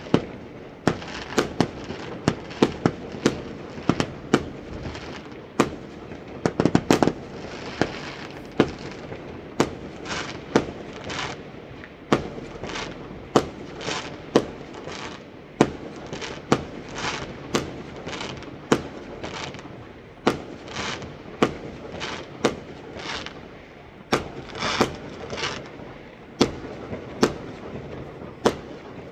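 Fireworks going off: a steady, irregular run of sharp bangs, about one or two a second, some followed by crackling.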